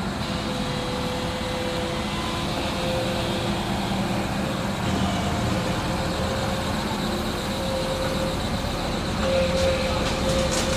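Diesel engine of a JCB earthmover running with a steady hum, with a few short clicks near the end.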